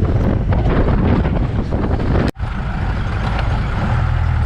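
Off-road jeep engine running on the move, with rumbling road and wind noise. The sound breaks off for an instant a little over two seconds in, then goes on as a steadier low engine drone.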